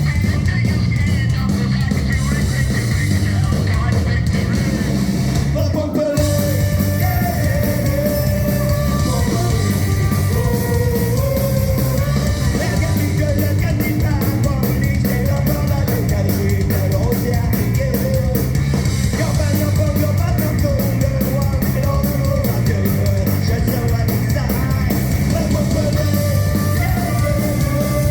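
Punk rock band playing live, loud and continuous, with drums, guitars and singing.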